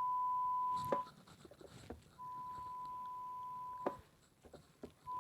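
Audiometer presenting a steady 1 kHz pure tone for a pure-tone air-conduction hearing test, switched on and off in separate presentations. The tone holds until about a second in, sounds again from about two to nearly four seconds in, and starts once more near the end. There is a sharp click where each tone stops, and a few faint clicks in the gaps.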